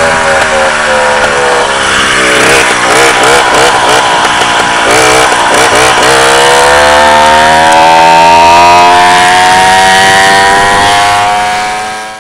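Piaggio Ciao moped's small two-stroke engine running under way. Its pitch wavers, then climbs steadily for the last several seconds as it speeds up, before the sound fades out near the end.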